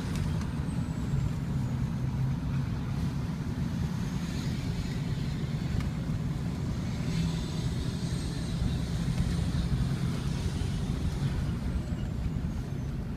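Ford 6.0-litre Power Stroke turbo diesel V8 with an aftermarket exhaust running steadily under way, heard from inside the pickup's cab. The rumble swells slightly about eight seconds in.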